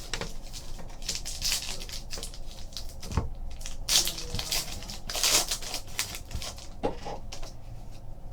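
Trading card pack wrapper crinkling and tearing in bursts as it is opened, with a few sharp ticks of cards being handled.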